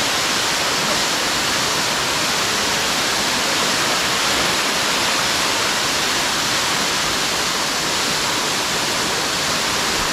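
Heavy rain falling: a steady, unbroken hiss with no single drops or knocks standing out.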